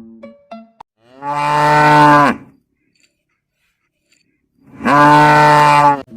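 Cow mooing twice: two long moos, each about a second and a half, a couple of seconds apart.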